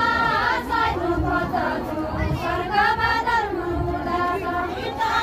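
A group of women singing together, their high voices carrying one melody that rises and falls.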